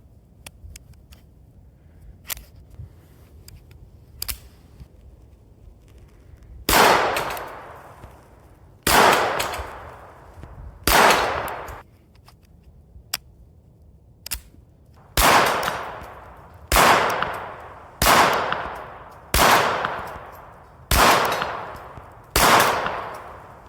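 FN 1922 pistol being fired: about nine single shots, each followed by a long echoing decay, three spaced about two seconds apart and then, after a pause, six in quicker succession. Faint small clicks of handling come before the first shot.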